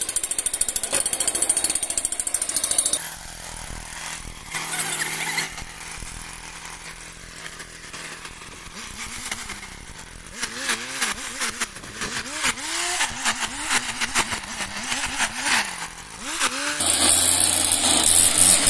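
Small petrol engine of a motorized orchard sprayer pump running. It is loud for the first few seconds, drops to a quieter stretch with irregular clicks and short warbling glides, and comes back loud near the end.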